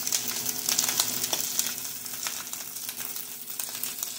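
Sliced bell peppers and red onion sizzling in olive oil in a frying pan: a steady hiss full of small, quick crackles, over a faint steady hum.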